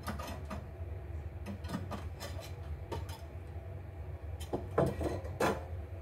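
Tools being handled and set down on a wooden workbench, including a soldering iron in its metal coil stand: a string of irregular clicks and knocks, the two loudest near the end, over a low steady hum.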